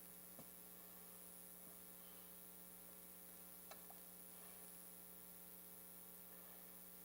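Near silence with a steady electrical hum and a couple of faint ticks.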